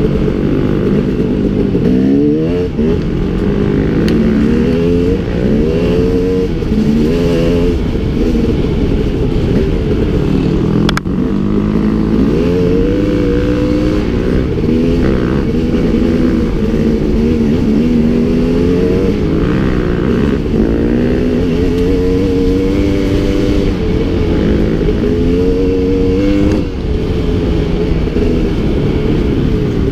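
Dirt bike engine being ridden on a rough trail, its pitch rising and falling again and again as the throttle is opened and closed. A single sharp knock sounds about eleven seconds in.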